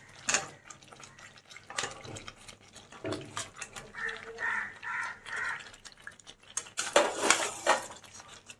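Fried chicken pieces dropped one at a time into thick masala in a steel kadai, with wet plops and light clinks of a steel spatula against the pan. Near the end comes a louder burst of clattering as the pan is stirred.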